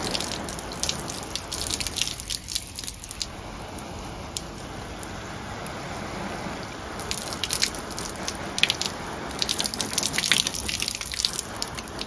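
Water spraying from a hose onto a canvas convertible soft top and rear window: a steady hiss with bursts of sharp spattering. The roof is being soaked to test whether a sealed leak holds.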